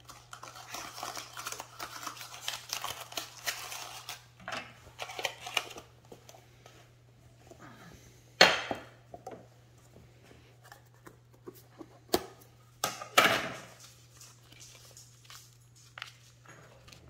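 Crinkling and rustling of packaging being handled for the first six seconds or so, then scattered clicks and sharp knocks of a metal tobacco tin being handled, two of them loud, about eight and thirteen seconds in.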